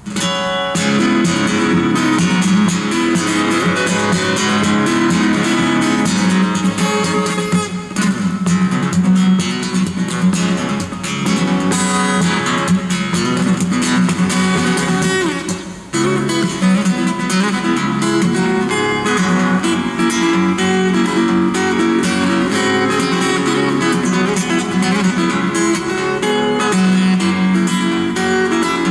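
Steel-string acoustic guitar played fingerstyle in a percussive style, with plucked melody notes and strums mixed with sharp taps on the guitar body. The playing starts suddenly and breaks off briefly about eight and sixteen seconds in.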